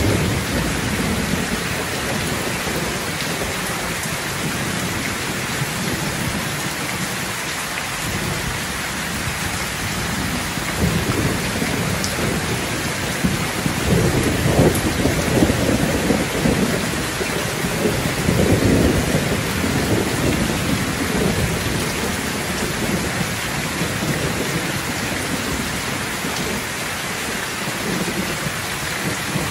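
Heavy rain falling steadily, with low rumbles of thunder swelling through the middle.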